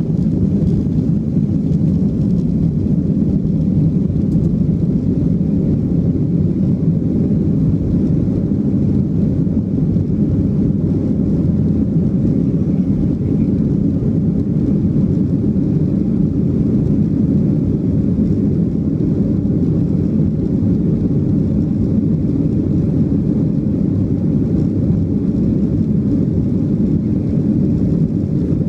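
Jet airliner engines at takeoff power, heard inside the cabin from a window seat over the wing during the takeoff run and climb-out. It is a steady, deep rush with no change in pitch.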